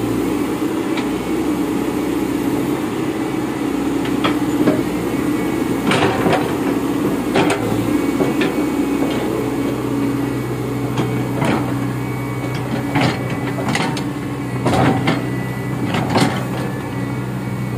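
Caterpillar hydraulic crawler excavator running with a steady diesel engine hum, joined from about six seconds in by several irregular sharp metallic clanks as the machine swings and moves on its steel tracks.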